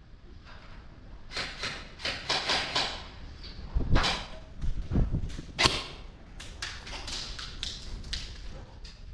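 Airsoft guns firing: an irregular series of sharp snaps, starting about a second and a half in, with a couple of heavier thumps near the middle.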